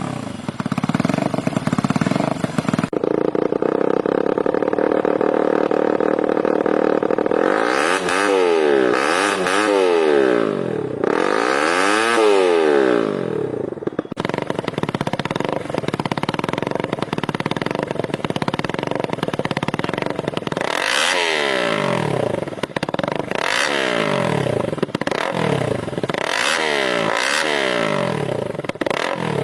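Supercharged Yamaha Y15ZR's 150 cc single-cylinder engine revved hard through its exhaust. It is held at high revs for several seconds, then blipped again and again, the pitch climbing and dropping with each rev.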